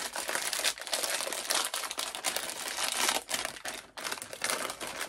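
A plastic bag of plantain chips crinkling and rustling as it is pulled open by hand.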